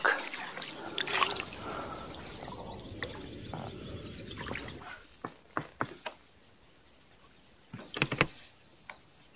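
Water splashing and sloshing for about five seconds, then fading, followed by a few sharp knocks near the middle and a quick cluster of knocks near the end.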